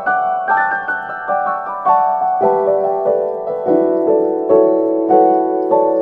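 Background piano music: a slow melody of single notes, about two a second, over held lower notes.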